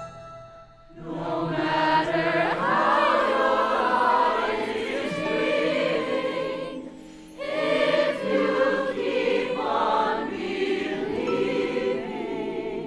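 Music with a choir of many voices singing, starting about a second in, with a brief break near the middle before it goes on.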